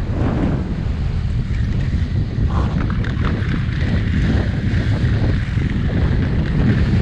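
Wind buffeting the camera microphone at speed: a steady, heavy low rumble with a rushing hiss above it.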